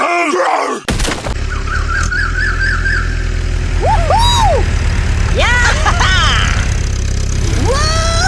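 A small engine running steadily with a pulsing low rumble, starting about a second in. Over it come a short warbling tone and several rising-and-falling chirp-like tones.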